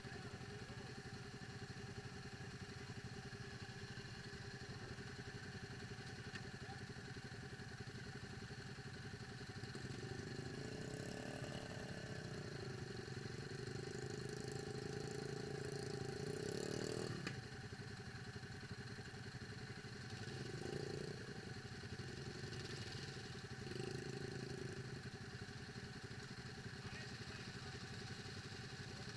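ATV engine idling, revved up for several seconds from about ten seconds in and dropping back suddenly, then given three short blips of throttle.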